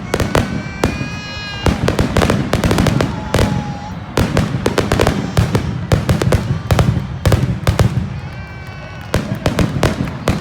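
Fireworks going off: many sharp cracks and pops in quick succession over a steady low rumble.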